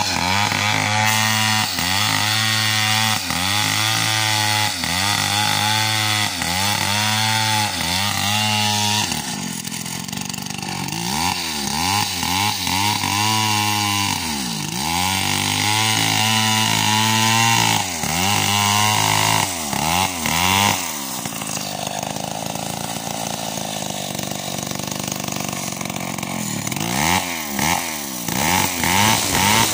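Stihl chainsaw with a 36-inch bar ripping a coconut log lengthwise, the engine running hard under load, its pitch dipping and recovering over and over as the bar bites into the wood. It runs steadier and a little quieter for a few seconds late on, then swings again near the end.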